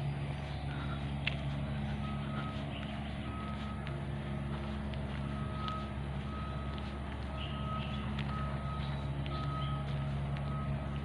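Jogging footsteps on a concrete path, with the hand-held phone knocking and rubbing, over a steady low hum. A short, high electronic beep repeats a little less than twice a second from about two seconds in.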